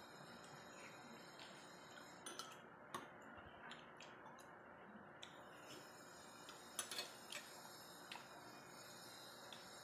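Metal spoon clicking and clinking faintly against a stemmed glass dessert glass while scooping gelatin salad, in scattered light taps with a small cluster a little before seven seconds, over a quiet hiss.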